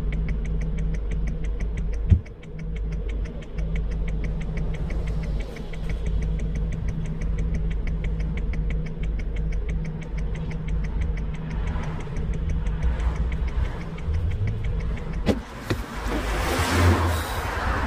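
Engine idling steadily with a rapid, even ticking. There is a sharp thump about two seconds in and a rush of noise near the end.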